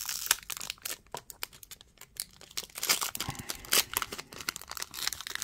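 Foil wrapper of a trading card pack being torn open and crinkled by hand: a run of short, sharp crackles and rustles, busiest about three seconds in.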